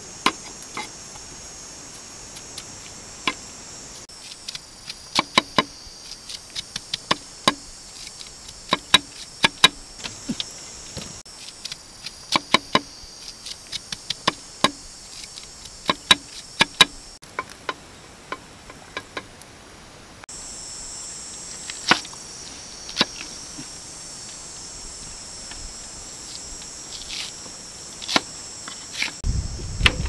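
Large cleaver cutting and chopping a fresh bamboo shoot on a wooden chopping block: sharp knocks of the blade on the wood, often in quick runs. Insects chirr steadily and high-pitched underneath.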